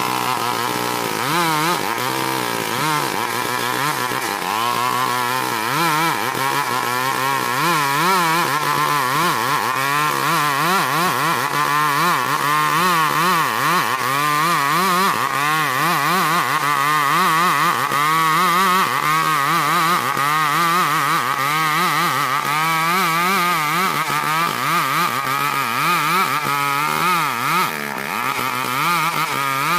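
Chinese-assembled two-stroke chainsaw ripping a board lengthwise from a log of ulin (Borneo ironwood), running hard under load with its pitch wavering up and down through the cut. It eases off briefly near the end.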